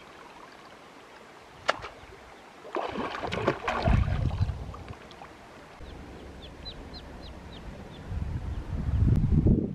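Water splashing as hands scoop through a shallow river, then a duckling peeping in a quick run of about eight short, high, falling chirps. Low wind rumble on the microphone comes in near the end.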